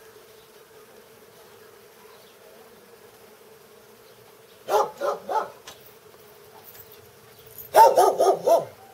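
A dog barks three times about halfway through, then again in a quick run of four or five barks near the end. Under it runs a steady hum of bees buzzing.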